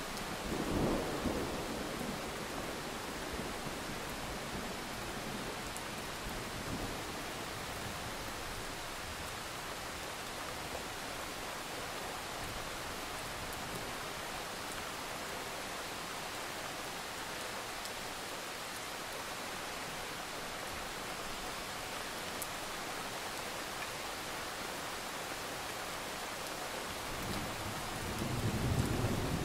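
Steady rain falling, with a low rumble of thunder about a second in and another near the end.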